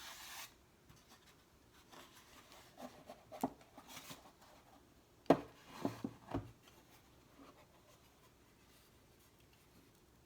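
Close-miked handling of stickers and a sticker box: rubbing and light sticky, crinkly scrapes, with a cluster of sharp taps and clicks a little past the middle.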